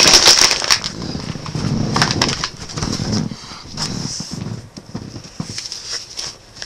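Paper wrapping and a cardboard book box being handled and unwrapped by hand: irregular rustling and crackling, busiest in the first few seconds and thinning out toward the end.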